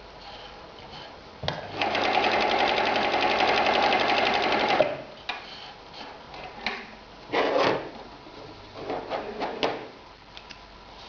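Husqvarna 2760 sewing machine stitching through leather: a fast, steady run of about three seconds, then two short bursts of stitching, with small clicks in between.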